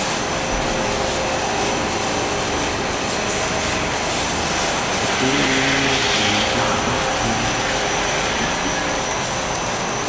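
Rotary milking parlour running: the platform and milking machinery give a loud, steady hiss and hum.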